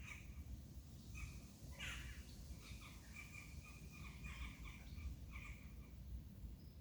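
Faint songbirds calling in a forest: a few short chirps, then a quick run of repeated notes through the middle, over a steady low rumble of ambient noise.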